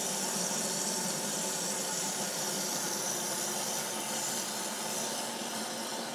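Tap water running from a supply hose into a plastic holding tank as it fills: a steady hiss.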